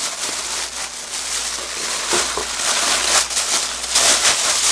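Thin plastic food bag crinkling and rustling as it is pulled open and peeled off a block of thawed cooked rice, in irregular bursts with no steady rhythm.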